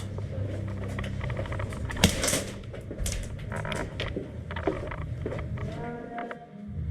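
Handling and movement noise on a body-worn action camera during an airsoft game: a steady low rumble with scattered clicks and knocks, and one sharp crack about two seconds in.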